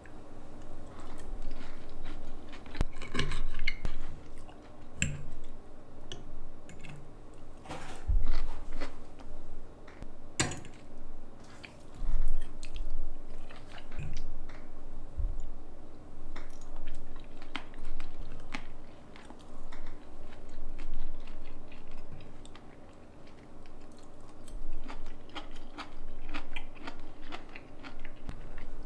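Crisp food crunching, with many scattered short clicks and knocks, over a faint steady hum.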